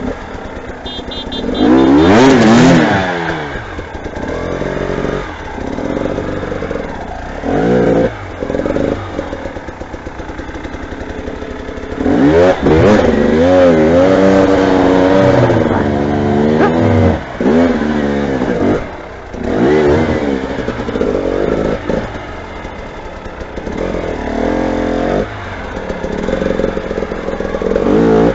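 Motorcycle engines revving as several bikes go by one after another, each swelling in loudness with the engine pitch rising and falling; the loudest passes come about two seconds in and from about twelve to sixteen seconds in.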